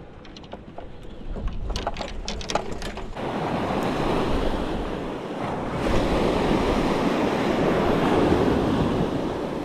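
Ocean surf washing on the beach with wind buffeting the microphone; a few sharp clicks sound in the first three seconds, then the surf noise swells about three seconds in and again near six seconds.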